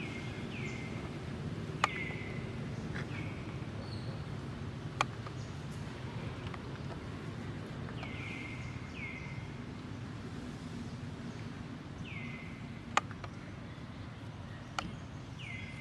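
Short, high chirps falling in pitch, about eight of them and several in pairs, from a small animal or bird, over a steady low rumble. A few sharp clicks stand out as the loudest sounds.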